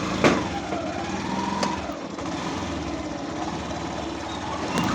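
A vehicle engine running with a steady hum. Sharp knocks come about a third of a second in and again near the middle, and a wavering high tone sounds over the hum during the first two seconds.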